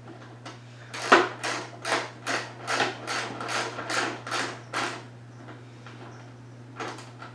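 Socket ratchet being worked to tighten number-plate bolts on a dirt bike: a quick run of about ten clicking strokes starting about a second in and stopping about five seconds in, then two lighter clicks near the end.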